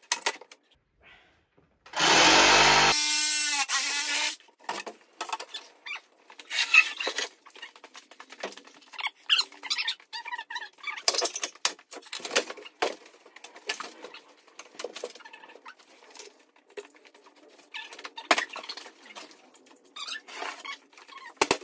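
A cordless power drill runs for about a second and winds down, about two seconds in. After that come scattered knocks, clatters and scrapes as a kitchen corner cabinet is worked loose and moved out, with footsteps on a tiled floor.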